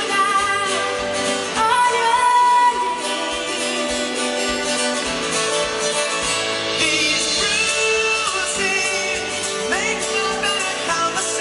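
Live pop band performing a duet: a woman and a man singing over electric bass guitar and drums, heard from the audience.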